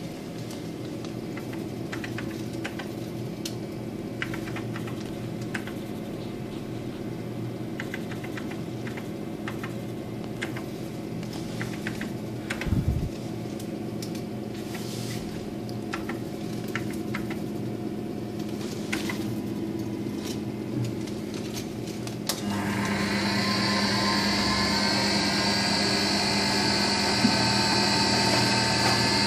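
Emco Compact 5 CNC lathe humming steadily while keys on its control-panel keypad click now and then, with one low thump about halfway through. About 22 seconds in, a motor on the machine starts with a sudden high whine that settles and holds steady.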